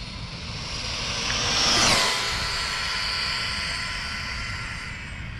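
Electric RC speed-run car at full throttle on a 2S LiPo, close to 80 mph, its brushless motor and drivetrain whining. The whine swells to its loudest about two seconds in, then drops in pitch and fades.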